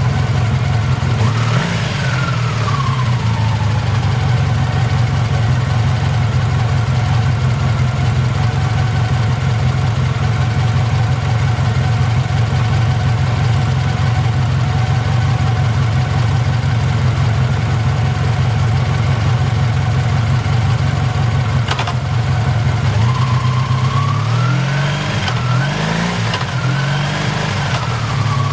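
Honda VF750F RC15's V4 engine running: one blip of the throttle about a second in, then a steady idle, then several quick revs near the end. The seller says the engine has an abnormal noise.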